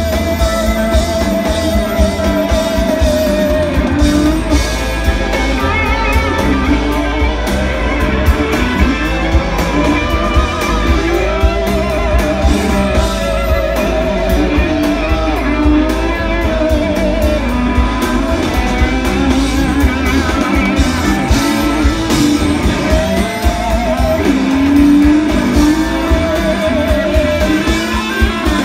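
Live rock band jamming, with an electric guitar playing a lead line of long, gliding notes over the band's steady rhythm, heard from the audience.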